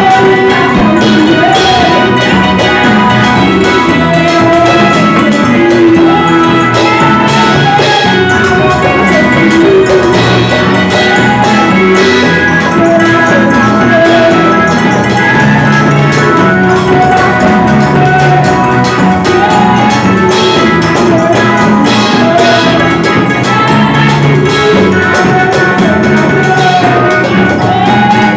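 Live, amplified gospel worship music: women singing into microphones over electric bass guitar, keyboard and percussion, loud and without a break.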